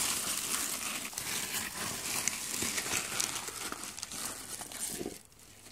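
Shredded paper packing fill rustling and crinkling as a hand rummages through it in a cardboard box, stopping about five seconds in.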